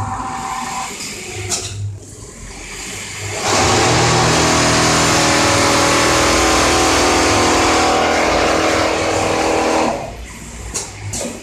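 Automatic template sewing machine stitching at high speed: a loud, steady machine run starting about three and a half seconds in and stopping about six seconds later, with quieter sounds before and after.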